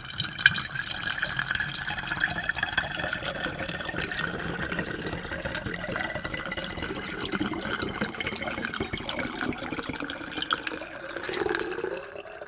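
Water pouring steadily into a glass, splashing as it lands. Near the end the resonant tone rises in pitch as the glass fills up.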